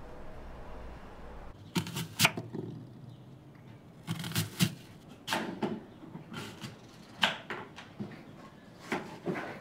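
Serrated knife slicing through an apple and knocking on a wooden cutting board: irregular sharp chops, several in quick groups of two or three.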